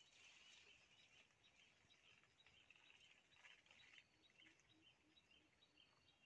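Near silence, with faint, high bird chirps repeating several times a second in the background.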